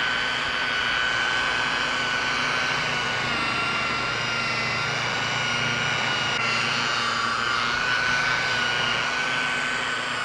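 Electric polisher running at high speed, its foam pad buffing polish into a plastic headlight lens: a steady motor whine that wavers slightly in pitch as the pad is worked across the lens.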